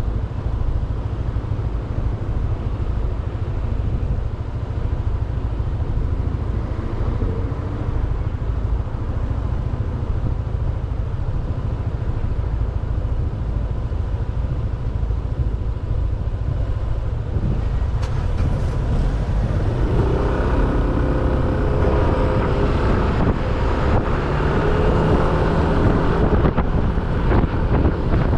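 Motorcycle running on the move, with wind rumbling on the microphone. About twenty seconds in, a stronger engine note with several steady tones comes in over it.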